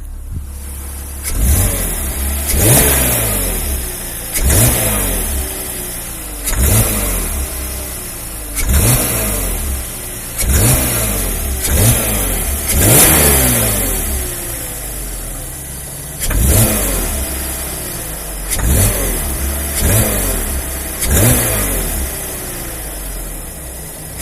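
BMW 320i M54 inline-six engine idling and blipped about a dozen times, each blip revving up sharply and falling back to idle. Under it runs the clattering ('Klackern') that the owner is presenting as an engine noise.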